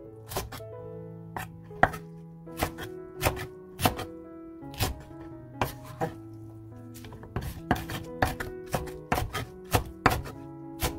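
Chef's knife chopping salted yeolmu (young radish) greens on a wooden cutting board: sharp strikes at an uneven pace, thinning out around the middle while the greens are gathered, over background music.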